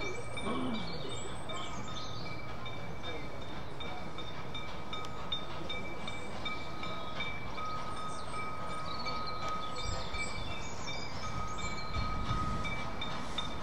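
A small steam tank locomotive working towards a level crossing, a steady low rumble with heavier low surges about ten and twelve seconds in, while the crossing's audible warning sounds a steady high tone that cuts out and resumes now and then.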